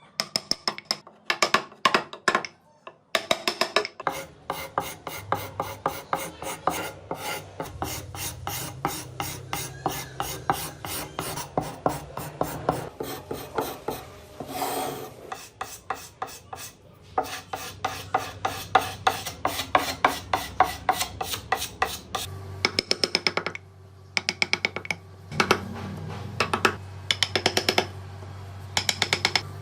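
Wood being worked by hand with an abrasive tool: quick back-and-forth scraping strokes, several a second, with brief pauses between runs.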